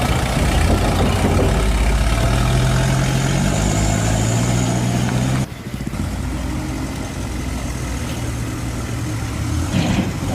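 Heavy vehicle engine running steadily, its pitch rising slightly before it drops abruptly about halfway through and settles at a lower, steady run.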